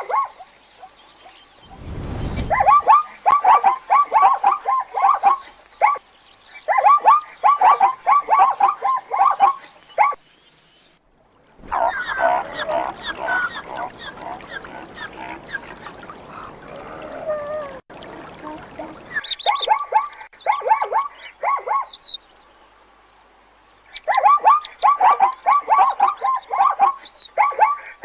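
Plains zebras barking: repeated bouts of rapid, yelping calls, each bout a second or a few seconds long. A rougher, noisier stretch comes in the middle, and a brief low rumble comes early.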